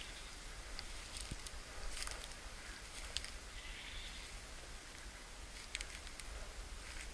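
Footsteps crunching slowly through dry leaf litter, with a few sharp clicks, over a steady hiss.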